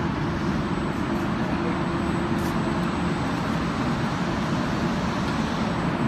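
Steady running noise of an automatic insulation foam pipe cutting machine and its production line, with a faint steady hum underneath.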